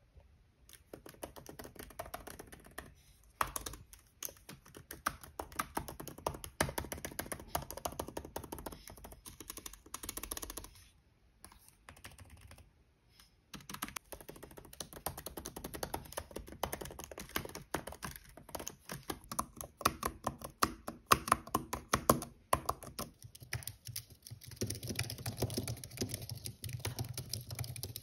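Fast typing on low-profile Apple keyboards, a dense run of light key clicks. The typing stops for a couple of seconds about eleven seconds in, and a low hum runs under the clicks near the end.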